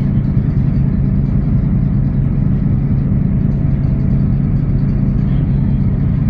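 Ferry's engines running steadily under way: a constant low hum with no change in pitch or level.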